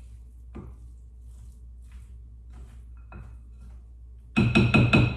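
Soft stirring of a salad in a glass bowl, then near the end a utensil knocked quickly against the glass bowl about five times, each knock ringing at the same pitch.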